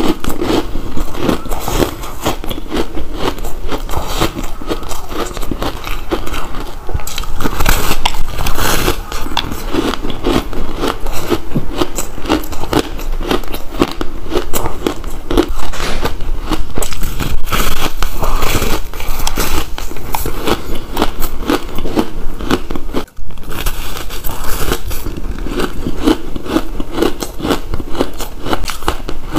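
Close-up crunching of a grainy block of purple-coloured ice being bitten and chewed: dense, rapid crackles as the teeth break through the brittle ice. The sound breaks off for an instant about three quarters of the way through.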